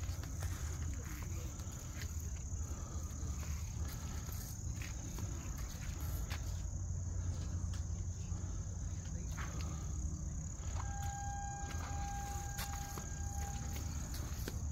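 Steady high-pitched buzz of insects, with a low rumble underneath and a few faint clicks. Near the end, a steady tone sounds for about three seconds.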